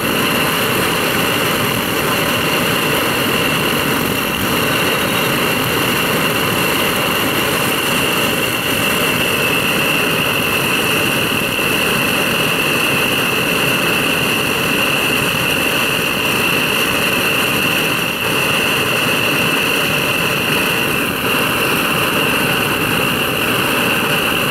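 Boucher petrol blow torch burning steadily: an even rushing hiss of the pressurised flame with a steady high whistle over it.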